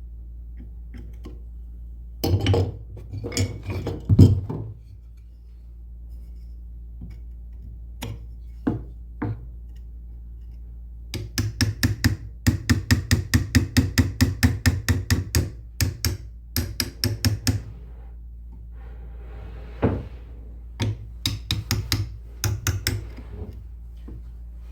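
A tool striking wood in sharp taps: a few scattered strikes, then a fast even run of about five taps a second for several seconds, then a few more taps near the end, over a steady low hum.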